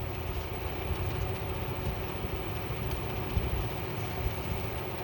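Steady low mechanical hum, like an engine or fan running, with a few faint clicks.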